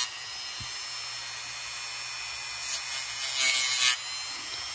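Dremel rotary tool running on its lowest speed setting with a steady high whine; about three seconds in, its cutting disc bites into the plastic flash of a model kit part for about a second with a harsh grinding hiss.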